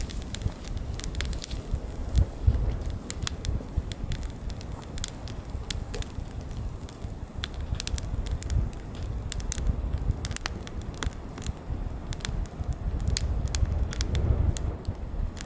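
Wood fire of split logs burning in an open fire stand, crackling with frequent sharp pops over a low, steady rumble.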